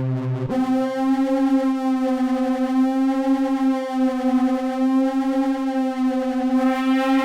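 BABY AUDIO BA-1 software synthesizer playing a single sustained note. About half a second in, it moves from a low note up about an octave and holds there, its upper tones wavering slowly.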